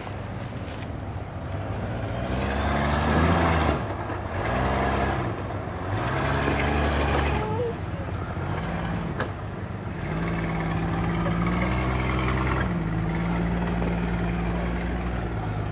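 Flat-fender Jeep's engine revving as it crawls up a rocky dirt trail, rising and falling in pitch several times in the first half, then holding a higher, steadier note from about ten seconds in.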